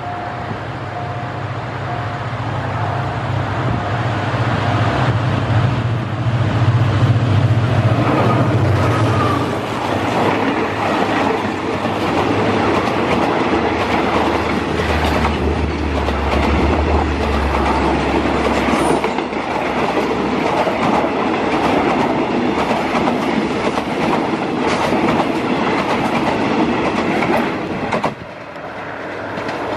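Diesel-hauled passenger train passing close by. A level-crossing signal beeps in a steady pulsing tone at first, and the locomotive's engine drones low as it goes past. Then the coaches' wheels clack rhythmically over the rail joints, until a sudden drop near the end.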